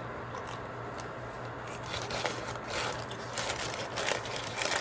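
Paper food wrapper rustling and crinkling as a taco is unwrapped, in quick bursts that grow denser over the second half, over a low steady hum.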